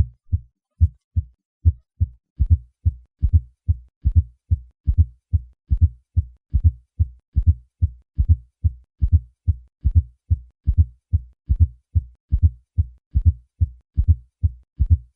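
Heart sounds as heard through a stethoscope, with a fourth heart sound (S4 gallop): a steady, even run of short, low-pitched thumps, about two or three a second. The S4 falls just before each first heart sound and is the sign of a stiff, poorly compliant left ventricle, as in hypertension.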